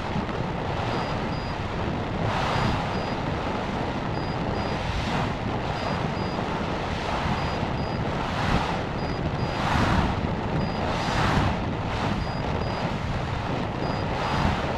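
Wind rushing over the microphone of an amateur rocket's onboard camera as it descends under its parachute, swelling about every second and a half. Faint short high beeps come in pairs, repeating at about the same spacing.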